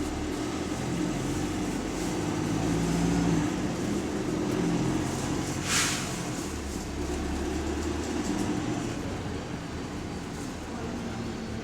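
Bus engine running, heard from inside the passenger cabin. About halfway through there is one short, sharp hiss of compressed air from the air-operated parking brake.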